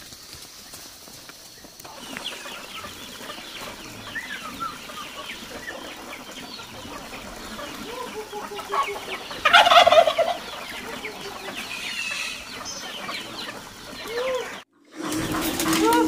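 A flock of chickens clucking and calling, with one loud squawk about halfway through. The sound drops out for a moment near the end, then the calls start again, louder.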